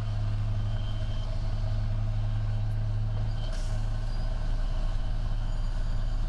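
Heavy diesel construction machinery running steadily with a deep engine hum, and a brief hiss about three and a half seconds in.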